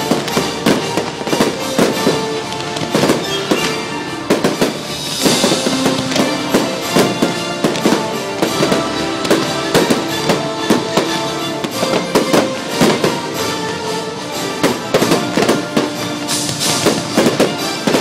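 Fireworks bursting with many sharp bangs in quick succession, over loud show music with held tones.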